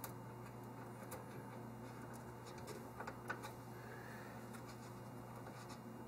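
Faint clicks and light scraping from a motherboard standoff being screwed into a computer case's motherboard tray by hand, with a few sharper ticks about halfway through, over a steady low hum.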